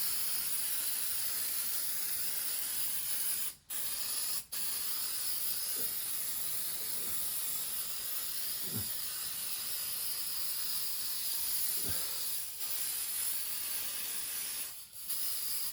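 Aerosol spray paint hissing steadily from the can, with a couple of brief breaks a few seconds in and another near the end.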